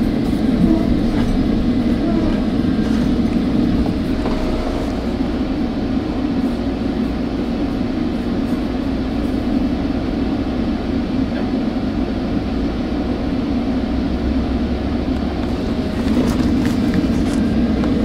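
Steady running rumble heard inside a moving commuter train coach as it travels along the track; it grows a little louder near the end.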